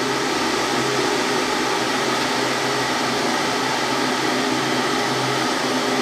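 Electric water heater running, a steady hiss with a faint low hum as the water heats up, short of a full boil.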